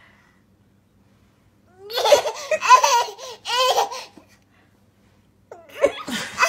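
A toddler laughing in two bouts of high-pitched giggles, the first starting about two seconds in and the second near the end.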